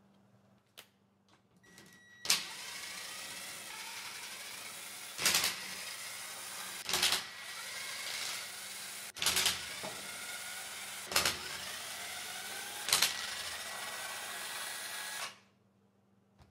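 Ryobi cordless driver with a socket running almost continuously, backing out the crankcase cover bolts of a Briggs & Stratton 10 HP engine block, with a whine that glides in pitch and six short, much louder sharp bursts about two seconds apart. It stops suddenly about a second before the end.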